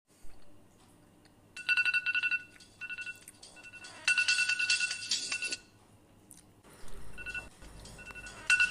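Electronic alarm beeping: a high, rapidly pulsing tone that comes in bursts of a second or so, with short single beeps and quieter gaps between them.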